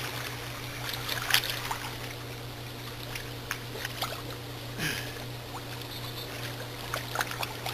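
Swimming-pool water splashing and lapping as people swim, in small scattered splashes over a steady low hum.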